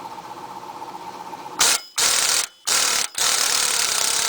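Impact wrench driving the axle nut on to draw the hub and knuckle together: it starts about a second and a half in, is triggered in short bursts with brief gaps, then runs on steadily.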